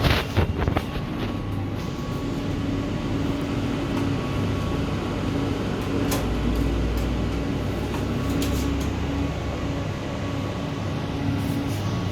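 Panasonic CS-PC9PKJ split air conditioner unit running: a steady hum with a faint held tone and a low rumble. A few sharp clicks sound at the very start.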